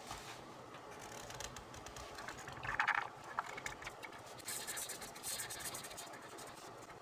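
Marker tip scratching across coloring-book paper in short back-and-forth strokes, with a brief louder knock or rustle about three seconds in.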